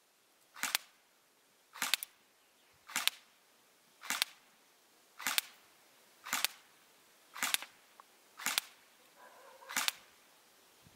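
GSG G14 electric blowback airsoft rifle firing single semi-automatic shots at a steady pace of about one a second, nine in all, each a short sharp crack.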